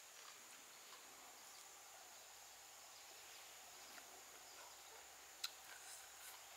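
Near silence: faint outdoor ambience with a steady high-pitched insect drone, and a few faint clicks in the last couple of seconds.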